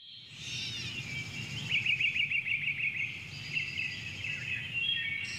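Birds singing, with chirps and a rapid trill of evenly repeated notes about two seconds in, over a low steady background rumble.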